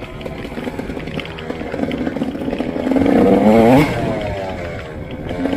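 Motorcycle engine under way. It pulls louder and rises in pitch until nearly four seconds in, then the throttle eases off and the pitch falls away.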